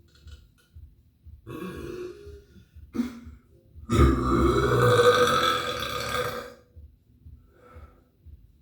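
A person burping deliberately: two shorter sounds, then a long, loud burp near the middle lasting nearly three seconds.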